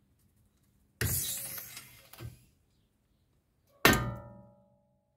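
A stuck suspension ball joint breaking free of its tapered seat under load from a bottle jack: a sudden loud bang about a second in, then a second, sharper metallic clank near four seconds that rings on briefly.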